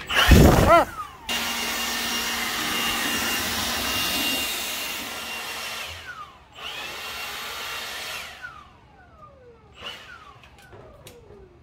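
Cordless leaf blower running steadily for about five seconds with a faint whine in the rush of air, stopping, then running again for a couple of seconds before its motor winds down with a falling whine.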